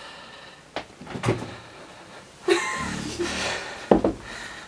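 An interior door being handled and opened: several separate latch clicks and knocks, the sharpest near the end.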